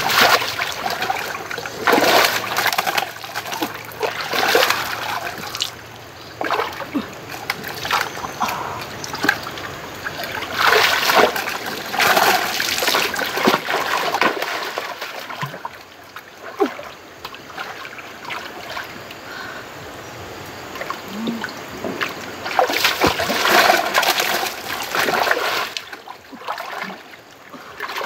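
Splashing and sloshing of shallow water as a person wades and scoops at it by hand to catch fish. The splashing comes in irregular bursts, busiest in the first half and again near the end, with a quieter stretch in the middle.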